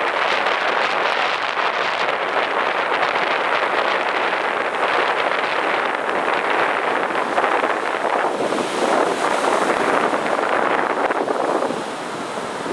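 Heavy sea surf breaking and washing ashore in a continuous rush, with wind buffeting the microphone; it eases a little near the end.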